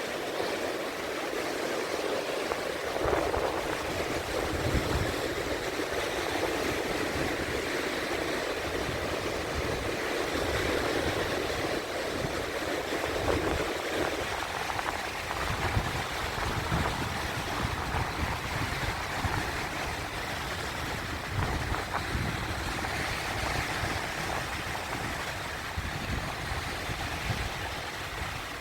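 Sea waves washing over rocks: a steady rushing wash of water.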